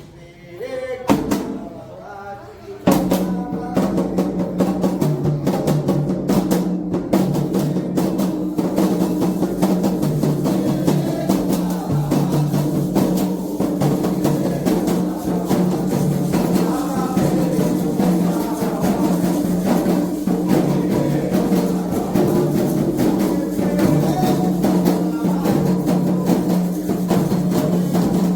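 Candomblé toque: atabaque hand drums playing a steady, dense rhythm. It breaks in fully about three seconds in, after a few scattered strokes.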